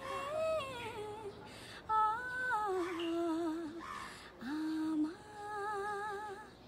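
A woman singing a slow Nepali song unaccompanied, in long held notes with vibrato, four phrases that step down in pitch.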